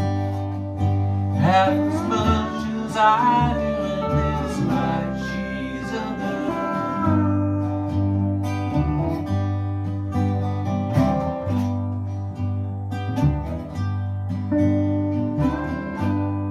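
Small acoustic string band playing: bowed cello bass notes under a resonator guitar, an eight-string baritone ukulele and pedal steel guitar, with sliding, bending notes about two seconds in.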